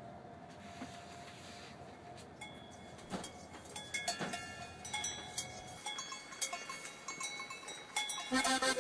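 Small livestock bells clanking and ringing irregularly. For the first half they sound over a train's low steady rumble, which drops away about six seconds in. Accordion music comes in near the end.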